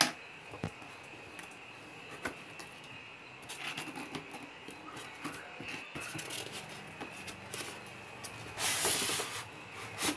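Cardboard box and polystyrene foam packing rubbing and scraping as the foam insert is worked out of the box, with scattered small knocks and a louder scraping rush about nine seconds in.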